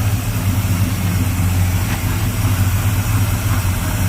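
1973 Plymouth Roadrunner tribute car's engine idling steadily.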